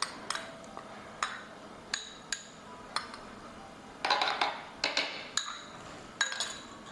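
A metal utensil tapping and scraping inside a small glass jar to knock green chili paste out into a bowl: sharp single clinks about once a second, then a busier stretch of clatter and scraping about four seconds in.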